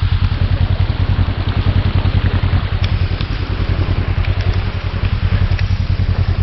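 Side-by-side UTV engine running steadily with an even low throb, under heavy rain hissing, with scattered raindrops ticking on the microphone.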